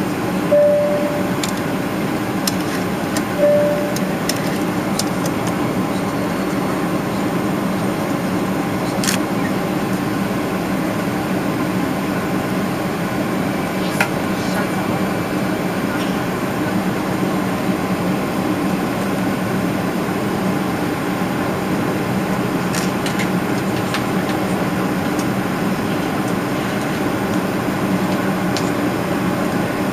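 Steady in-flight cabin noise of a Boeing 777-300ER: the drone of its GE90-115B engines and the airflow past the fuselage, heard from a seat over the wing. Two short single tones about three seconds apart come near the start, and a few faint clicks later on.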